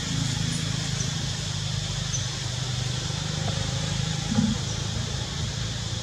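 Steady low motor hum with a faint high hiss above it, and a short low sound about four and a half seconds in.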